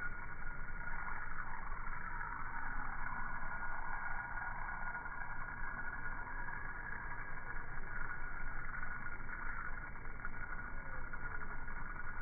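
Outdoor ambience played back slowed down, heard as a steady low rumbling drone with a faint falling tone near the end.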